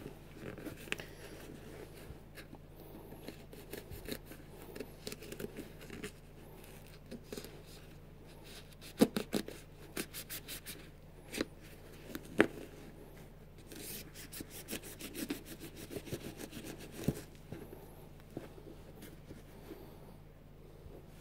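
Nike Air Max sneaker being handled: its laces and upper rub and rustle under the fingers, with a few sharp knocks and two runs of rapid clicks, about nine and fourteen seconds in.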